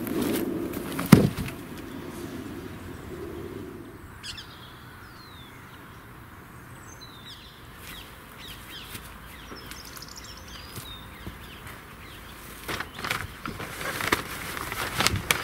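A single sharp knock about a second in, the loudest sound, as the large composter is opened up. Small birds chirp in short gliding notes through the middle, and near the end comes a spatter of rustling and clicks as a black plastic sheet on top of the composter is handled.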